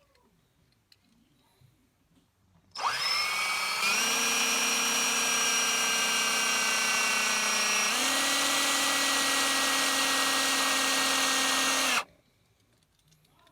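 Small electric drill starting about three seconds in and running steadily for about nine seconds, drilling out the rivet that holds a die-cast toy car's base on. Its tone shifts once partway through, then it cuts off.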